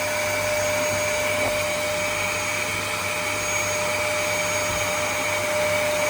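Vacuum cleaner running steadily: an even rushing noise with a constant whine on top.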